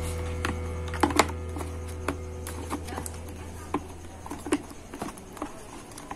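Irregular small plastic clicks and taps as a universal digital speedometer gauge is handled and pressed into a scooter's handlebar cover, over a low steady hum that fades out near the end.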